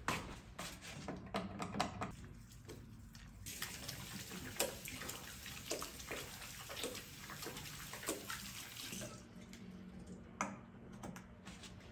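Running water splashing onto a surface, starting about three and a half seconds in and stopping about nine seconds in, with a low steady hum underneath.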